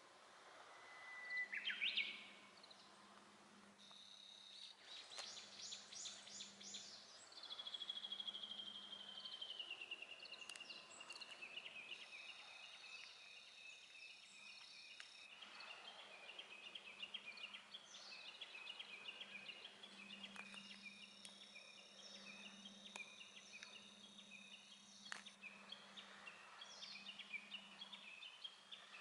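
Songbirds singing: a whistled note that rises sharply about two seconds in, a slow falling trill, then long runs of quick repeated chirps, over a faint low hum.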